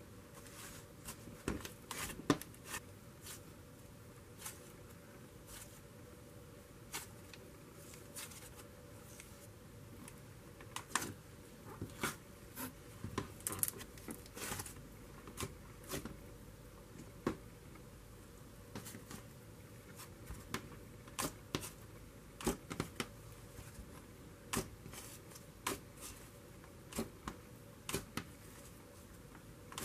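Hands pressing, poking and stretching thick, doughy cloud cream slime, which gives irregular little crackles and pops, about one or two a second.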